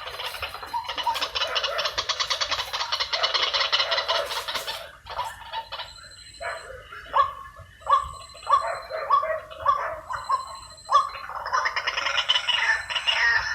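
White-breasted waterhen calls: a fast rattling chatter for about five seconds, then a string of single croaking notes about two a second, and the chatter starting again near the end.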